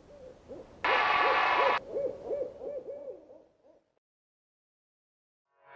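Owl hooting, used as a logo sound effect: a quick series of low hoots, about four a second, that fades out. A loud, harsh burst about a second long cuts in near the start.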